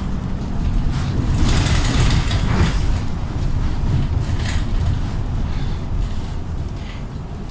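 Cabin noise inside a Mercedes-Benz Citaro G C2 articulated city bus under way: a steady low engine and road rumble, with several brief sharper noises through it.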